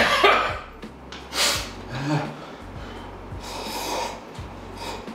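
A man coughing and spluttering into his hand, choking on very spicy ramen broth: a loud harsh cough at the start, another about a second and a half in, then quieter breathy sounds. Near the end he slurps noodles again.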